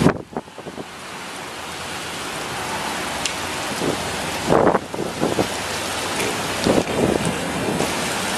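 Pea-sized hail and rain falling steadily onto an open concrete parking deck, a hiss that builds over the first second. A few brief, louder low thumps come about halfway through and again later.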